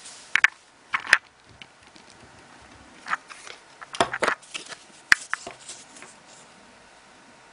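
Lenticular plastic business cards handled on a table: a series of sharp clicks and light scrapes as the cards are set down, shifted against each other and picked up. The clicks come in clusters about a second in and again from about three to six seconds in, then stop.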